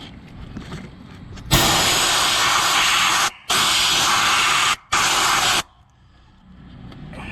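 Compressed-air blow gun giving three loud blasts, a long one and then two shorter ones, each starting and stopping abruptly, to blow oil and dirt out of the engine's distributor hole.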